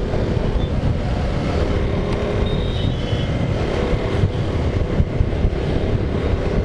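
Motorcycle riding steadily at speed on an open road: a constant low rumble of engine, road and wind noise with a faint engine drone running through it.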